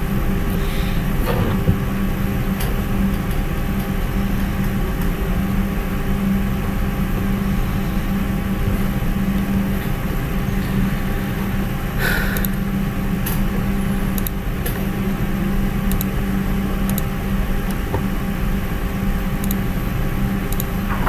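Steady machine-like background hum with a few steady tones in it, such as a fan or electrical hum picked up by the microphone. A few faint clicks come about halfway through.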